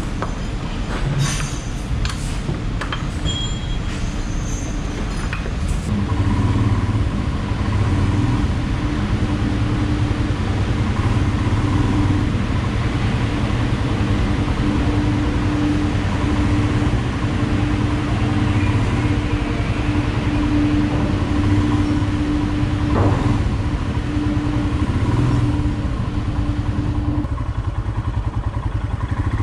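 Metal hooks and lashing straps clanking for the first few seconds, then a Royal Enfield Himalayan's single-cylinder engine running steadily from about six seconds in as the motorcycle is ridden off the ferry. The engine sound eases near the end.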